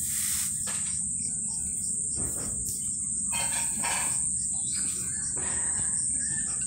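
Insects trilling in one steady high note, with scattered bird chirps.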